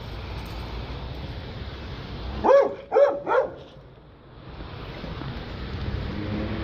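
A dog barking three times in quick succession, about half a second apart, midway through.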